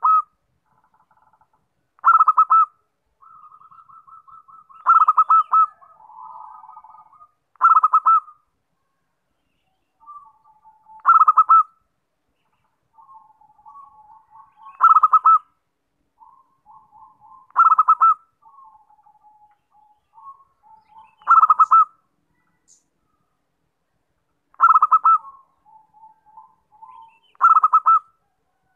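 Zebra dove (perkutut) singing its staccato cooing song: nine loud, rapid phrases, one every three to four seconds, with softer trilling notes between them.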